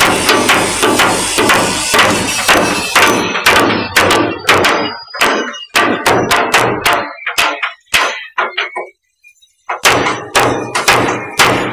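Chipping hammers knocking rust off a steel ship's deck: rapid, sharp metallic strikes, several a second. The strikes stop dead for about two seconds near eight seconds in, then start again.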